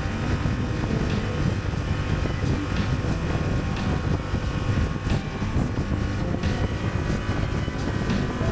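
Honda Transalp 750's parallel-twin engine running steadily at about 70 km/h on the open road, gaining a little speed, with wind buffeting the microphone.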